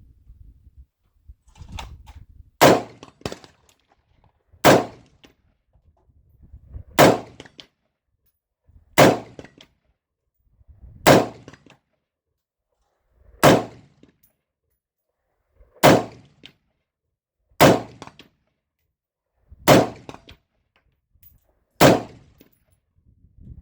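Kodiak Defense WK-180C Gen 2 rifle fired ten times in slow semi-automatic fire, one sharp shot about every two seconds.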